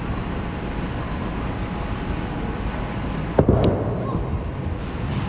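Steady bowling-alley din, then about three and a half seconds in a sharp thud as a released bowling ball lands on the lane.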